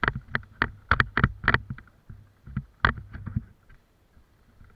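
Running footsteps on a leaf-covered forest floor, thudding close to the microphone about three strides a second. They slow and thin out after about a second and a half, with a last strong thud near three seconds in.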